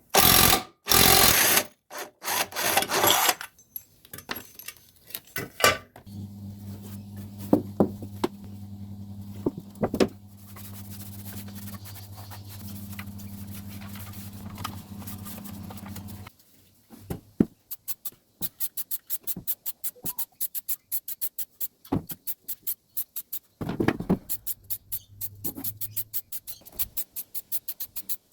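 A 14 mm socket wrench working the lawnmower's blade carrier bolt loose. There are metal clanks in the first few seconds, a steady low hum for about ten seconds, then a long run of fast, even ratchet clicks.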